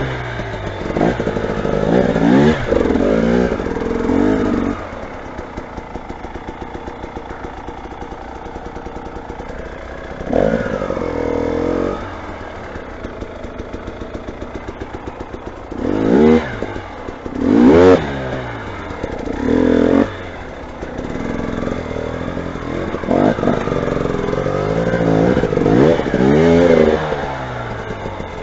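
Motorcycle engine idling with an even patter, revved up and back down several times: a burst near the start, one in the middle, a quick pair a little past halfway, and a longer run of revs near the end.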